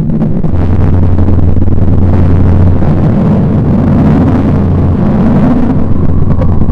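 Loud, low rumbling drone with a steady low hum underneath: a sonified space recording presented as the sound of a planet.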